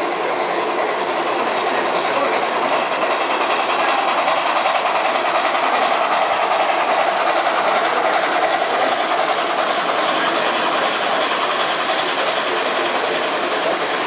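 Model steam locomotive and freight cars running on a layout's metal track: a steady rolling rumble and whir of wheels and motor, louder in the middle as the train passes close by.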